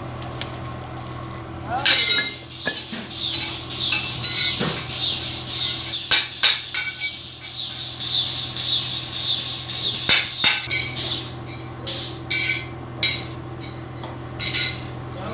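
Small birds chirping rapidly in a dense, high-pitched chorus of quick falling calls for several seconds, thinning to scattered separate chirps near the end, over a steady low hum.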